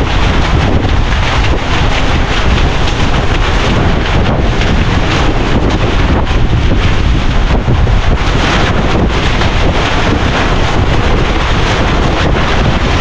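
Strong gusty wind buffeting the microphone, a loud continuous low rumble and roar.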